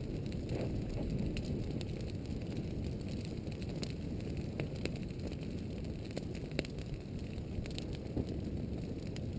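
Scattered sharp crackles and pops over a low, steady rush: brush burning and crackling as a lava flow pushes into it.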